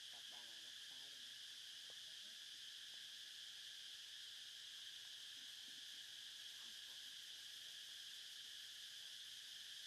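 Faint, steady chorus of insects: a constant high-pitched buzz that does not change. A faint human voice is heard briefly about half a second in.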